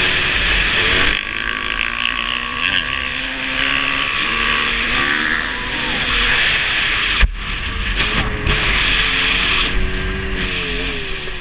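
Kawasaki KX500 two-stroke single-cylinder dirt bike engine revving up and down under hard riding, with a steady rush of wind over the microphone. A sharp knock comes about seven seconds in.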